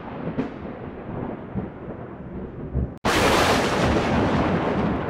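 Thunder rumbling, picked up by a security camera's microphone. About three seconds in it breaks off abruptly and a louder, sharper roll of thunder starts, beginning to fade near the end.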